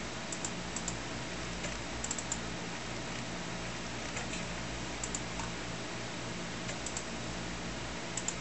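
Sharp computer mouse-button clicks, scattered and some in quick pairs as Workbench drawer icons are double-clicked open, over a steady low hum.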